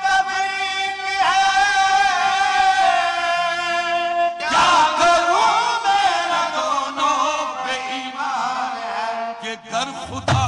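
Qawwali music: a long held, wavering sung note with many overtones, then from about four seconds in a busier passage of gliding vocal and harmonium melody. Near the end low drum strokes come in.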